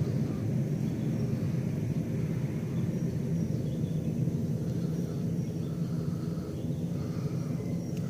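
A steady low rumble of outdoor background noise, with no distinct events.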